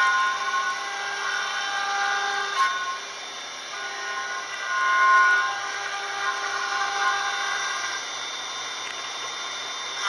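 A 5-axis CNC machine's spindle whining steadily as its tapered cutter carves a relief into katsura wood. The cutting noise swells and fades as the tool moves over the surface, loudest at the start and about halfway through.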